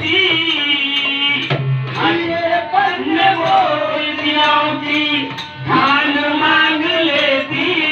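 Live bhajan music: a harmonium melody over regular dholak drum strokes.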